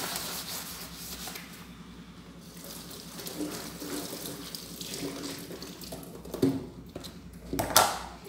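Tap water running into a kitchen sink while dishes are washed by hand, with two sharp clatters of dishes near the end, the second the loudest.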